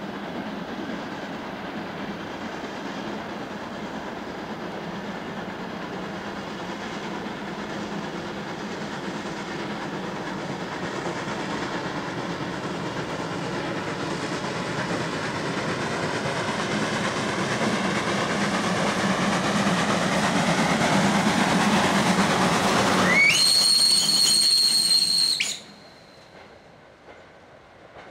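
Class 52 2-10-0 steam locomotive running with a train of freight wagons, growing steadily louder as it draws closer. Near the end it gives a whistle blast of about two seconds that rises in pitch at its start, then the sound cuts off suddenly to a quiet background.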